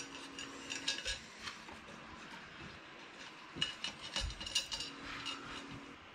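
Light metallic clicks and clinks of small hardware being handled: a 3D printer limit switch with its T-slot nuts and screws being fitted to the aluminium frame. The clicks come in scattered clusters, about a second in and again around four to five seconds in.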